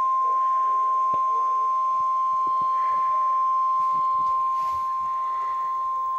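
NOAA Weather Radio warning alarm tone: a single loud, steady beep held without a break, the signal that a warning broadcast is about to follow. Faint radio static crackles underneath.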